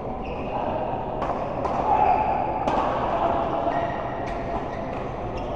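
Sharp racket hits, about five spread through a rally, with short squeaks of court shoes on the floor over the murmur of a sports hall.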